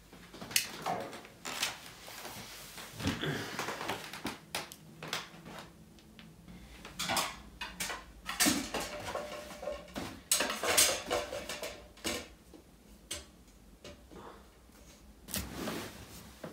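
Irregular knocks, clinks and rustles of household objects being handled and set down, among them paper and a metal lamp shade.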